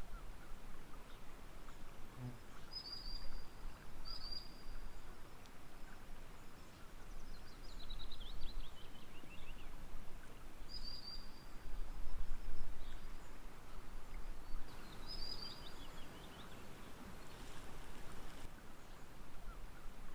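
Small birds singing over a steady hiss of calm water. A short bright whistled note comes four times, and a quick falling trill comes twice. A low rumble swells up twice near the middle.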